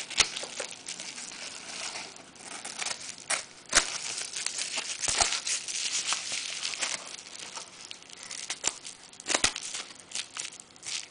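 Scissors cutting paper-backed bubble wrap along the edge of a wooden block: a continuous crinkling of the plastic with a few sharp snips.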